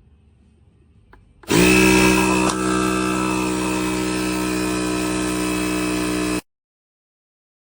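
Portable 12V tire inflator air compressor running: it starts abruptly about one and a half seconds in with a steady, pitched motor hum, eases slightly a second later, then cuts off abruptly.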